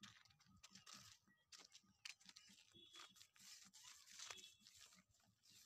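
Faint, frequent crunching footsteps on dry ground and dry grass, with crackly rustling over them.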